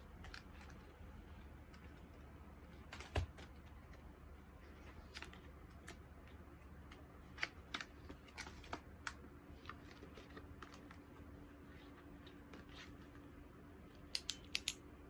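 Packaging and items being handled during an unboxing: scattered light taps and clicks, a single thump about three seconds in, and a quick run of four clicks near the end.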